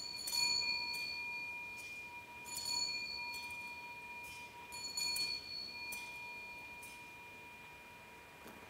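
Altar bells shaken three times, about two and a half seconds apart, each shake a quick cluster of strikes that rings on and fades, marking the elevation of the chalice at the consecration.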